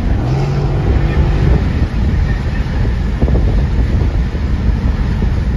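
Dodge Challenger SRT 392's 6.4-litre HEMI V8 cruising at highway speed, heard inside the cabin as a steady low rumble of engine, exhaust and road and wind noise. A steadier engine note stands out for about the first second and a half.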